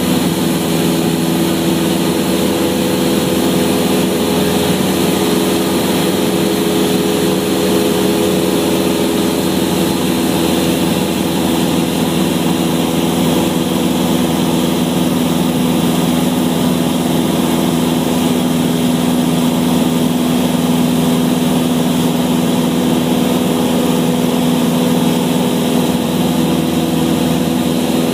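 Cessna's piston engine and propeller running at a steady, unchanging pitch, heard as a constant drone inside the cabin.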